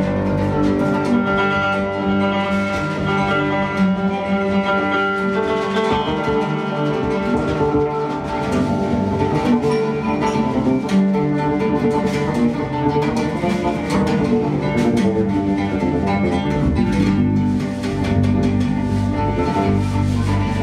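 Oud plucked in a flowing line of melody. A sustained low note sounds under it, drops away about a second in and comes back near the end.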